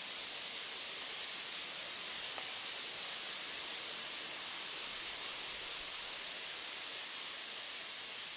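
Steady, even hiss of outdoor background noise, with no bird calls or other distinct sounds standing out.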